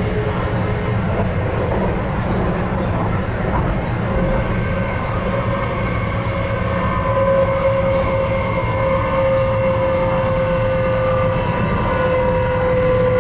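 Stadler GTW-E electric train heard from inside the passenger cabin while running: a steady rumble of wheels on rail, with an electric traction whine that comes in about four seconds in and holds, with fainter higher tones above it.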